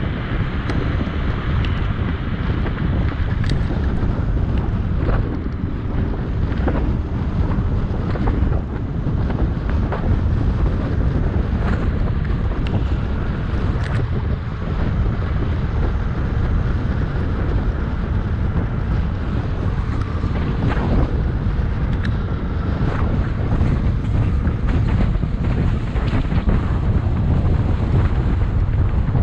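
Wind buffeting the microphone: a steady low rumble, with scattered light clicks throughout.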